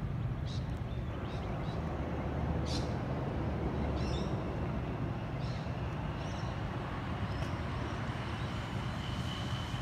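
Steady low rumble of a distant, unseen vehicle, which the listener takes for a train approaching from around the bend.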